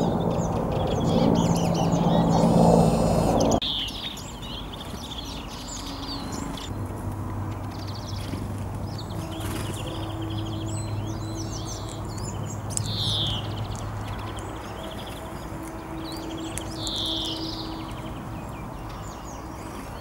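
Small songbirds at a seed feeder giving scattered short, high chirps, several sliding down in pitch. A louder low droning noise fills the first few seconds and cuts off suddenly.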